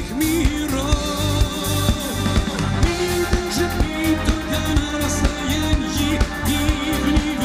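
Live pop-rock band playing with drum kit, bass, electric guitars and keyboards over a steady beat, with a male lead voice singing the melody.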